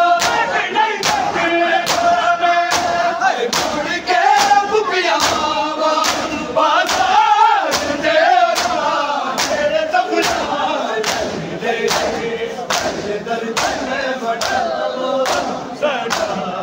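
A crowd of men chants a noha in unison while beating their chests in matam. The open-handed strikes land together in a steady rhythm, a little faster than once a second.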